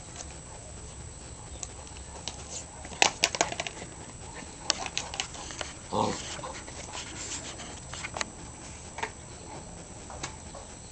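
Briard puppy making a short vocal sound about six seconds in, amid scattered sharp clicks and taps as it plays and moves about.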